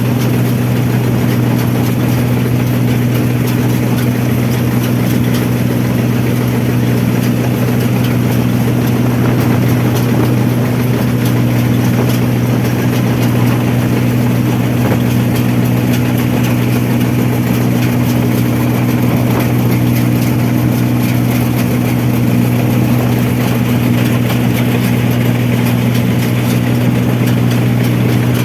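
Rice combine harvester's engine running steadily at a constant speed, a loud unchanging hum with a broad mechanical clatter over it.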